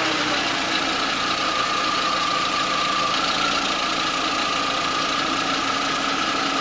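2004 VW New Beetle engine idling steadily just after being started, with a steady whine over the running noise; not a pretty sound.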